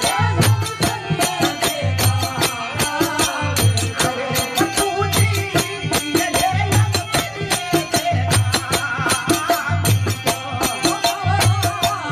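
Rajasthani devotional folk song: a man singing to a harmonium, over a steady low beat and quick, crisp clicking percussion.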